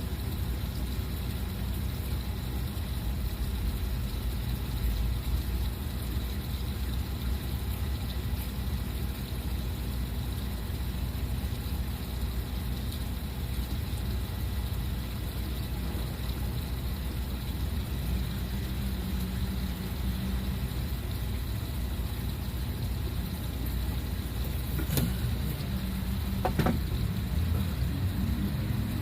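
A motor running steadily with a low rumble, with a couple of sharp knocks near the end.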